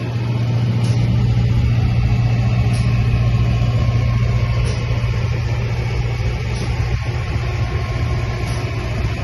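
A machine running steadily at constant speed, a continuous low hum with a faint tick about every two seconds.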